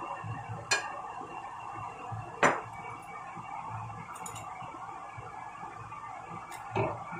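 Metal spatula clinking and scraping against a stainless steel wok while stir-frying vegetables, with three sharp clinks, the loudest about two and a half seconds in.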